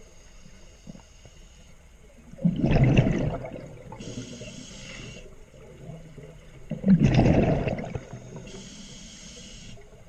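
A scuba diver breathing through a regulator underwater: two exhalations, each a loud rush of bubbles about a second long, each followed by the thinner hiss of the next inhalation, in a slow steady rhythm.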